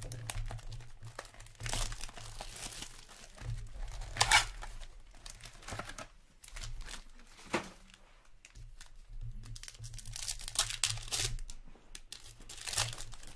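Cardboard Upper Deck Allure hockey card box being torn open and a card pack pulled out and ripped open: several bursts of tearing and crinkling wrapper, the loudest rip about four seconds in.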